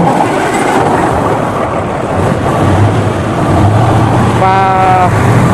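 Engine of an air-brake truck starting up and running steadily. A short held tone, like a voice, about four and a half seconds in.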